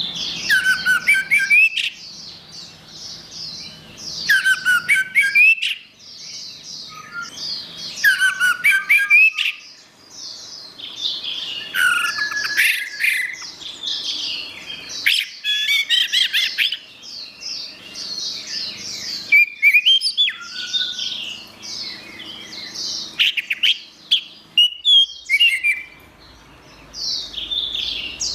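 Orange-headed thrush (anis merah) singing a varied song of quick whistled and chattering notes, in phrases of one to three seconds separated by short pauses.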